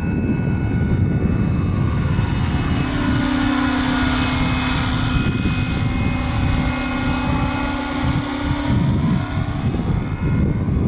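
Scale radio-controlled Bell 429 model helicopter flying: dense chopping of the rotor blades with a steady high whine over it. A steady low hum comes in about three seconds in and drops away near the end.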